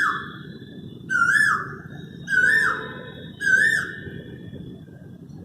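A cuckoo calling repeatedly, about one call every 1.2 seconds. Each call is a clear whistled note that rises and then drops away. The calls stop near the end.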